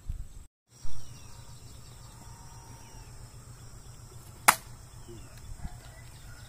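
A thrown blade strikes a wooden round target with a single sharp crack about four and a half seconds in, the loudest sound here. A loud thump comes about a second in, just after a brief dropout.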